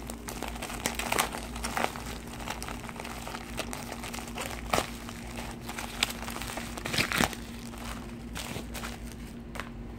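Red bubble-wrap packaging and clear plastic bags crinkling and rustling as hands pull the wrapped items out, with sharper crackles about five and seven seconds in; the handling dies down near the end.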